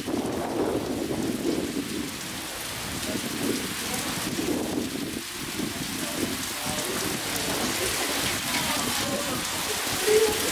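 Heavy rain pouring down steadily, with a fluctuating low rumble underneath.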